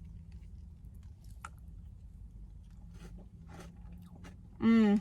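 Quiet mouth sounds of eating a spoonful of ice cream Blizzard with cookie pieces: soft chewing with a few faint clicks and crunches. Near the end, a short loud hum of the voice.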